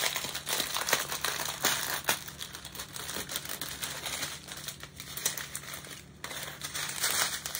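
Plastic packaging crinkling and crackling irregularly as a package of small bags of diamond-painting drills is opened by hand, with a brief lull about six seconds in.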